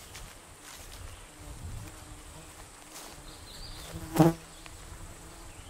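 A flying insect buzzing close to the microphone, with light footfalls on the overgrown trail and one short loud thump about four seconds in.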